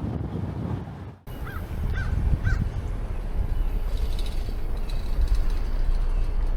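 Heavy wind rumbling on the microphone, with three short, evenly spaced bird calls about a second and a half in.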